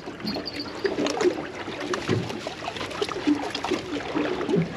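Water lapping against a boat hull, with scattered small clicks and knocks.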